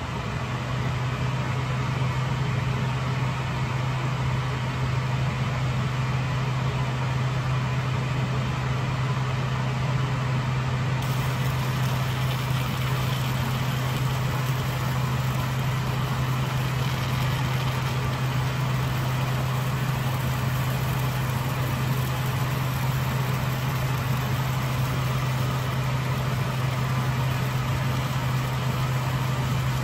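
Fume extractor fan switching on and running steadily with a low hum and airy rush. About 11 seconds in, a faint high hiss joins it.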